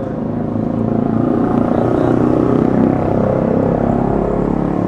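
A motor vehicle's engine running close by in street traffic, swelling louder toward the middle, with a deep rumble near the end.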